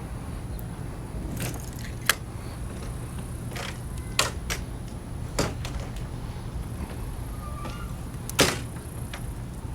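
A blade cutting and scraping hardened epoxy off a fishing rod's tip guide: a few sharp clicks and scrapes spread through, the loudest near the end. A steady low rumble runs underneath.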